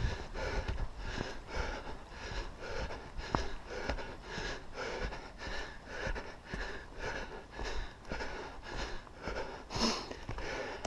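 A person breathing hard and rhythmically close to the microphone, about two breath sounds a second, while moving along the trail.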